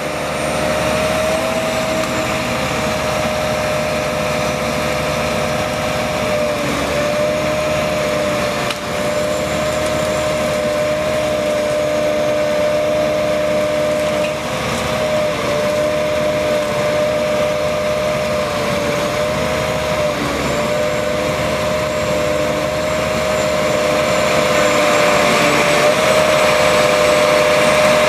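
DOLL Tree Trimmer tree-felling crane running steadily, a constant mechanical whine over engine noise, growing a little louder near the end.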